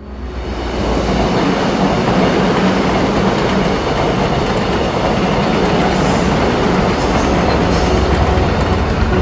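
Electric commuter train passing close by at speed, a steady loud rush of wheels on rails that swells in over the first second.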